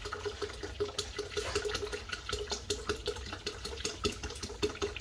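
Sprite poured from a two-litre plastic bottle into a plastic pitcher of juice: a steady stream splashing into the liquid, with fizzing and many rapid, irregular little pops from the carbonation.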